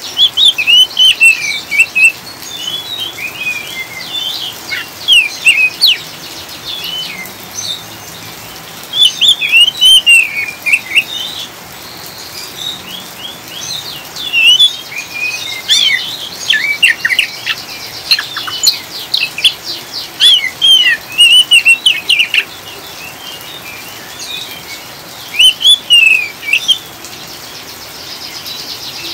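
Oriental magpie-robin (kacer) singing in the rapid twittering 'ngriwik' style: bursts of short, sweeping high notes with short pauses between them, over a steady hiss of rain.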